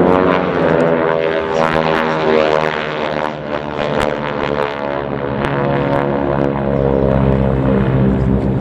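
A formation of North American Harvard trainers flying past, their Pratt & Whitney R-1340 Wasp radial engines and propellers making a loud, steady, many-toned drone.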